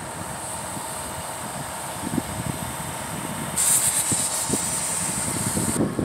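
Heavy truck machinery at a concrete pour, the ready-mix mixer truck and boom pump truck, running steadily with a faint hum. Just past halfway a hiss starts abruptly and cuts off about two seconds later.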